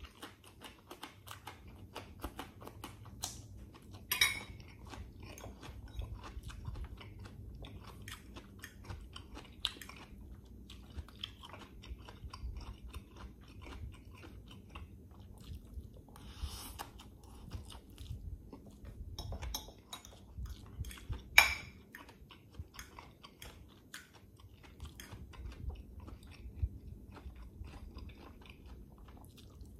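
Close-miked chewing and crunching of a crisp cucumber spear and soft stir-fried instant noodles (pancit canton), with many small wet mouth clicks. Two louder sharp clicks come about four seconds in and about twenty-one seconds in.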